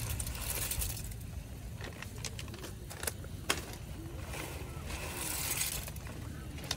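Plastic seasoning sachets crinkling and rustling as they are shaken out over a metal pot of pasta. There are a few sharp clicks, the loudest about three and a half seconds in, over a low steady rumble.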